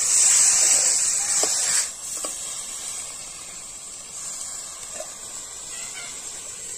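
Chicken pieces sizzling in a metal kadai over a wood fire, with the spatula stirring at first. The sizzle is loud and then drops suddenly about two seconds in to a quieter, steady sizzle.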